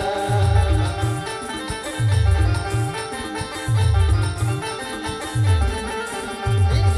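Timli band tune: a held melody line over heavy low drum beats that come in a repeating cluster about every second and a half.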